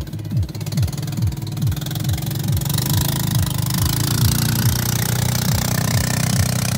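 Engine of a motorised outrigger boat running steadily as it passes close by, growing louder and hissier from about two and a half seconds in, over background music with a steady, fast kick-drum beat.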